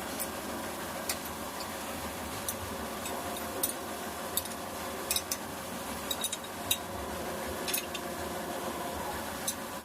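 A CNC machine running steadily while machining metal pins, with scattered sharp metallic ticks and clinks over its hum.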